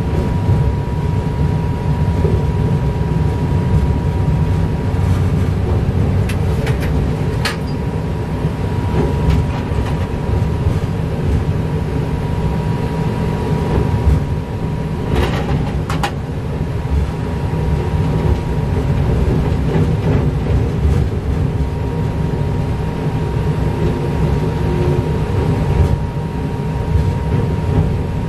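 Train running along the track, heard from the driver's cab: a steady low rumble with a faint steady whine. Sharp clicks sound as the wheels cross rail joints and points, a pair about seven seconds in and a louder pair about fifteen seconds in.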